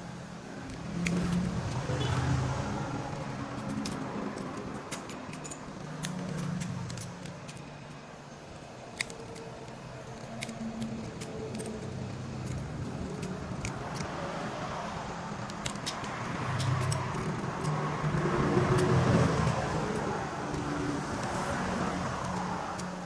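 Scattered light clicks and taps of small hand tools against a phone's body, with low engine hum from road traffic swelling and fading in the background several times.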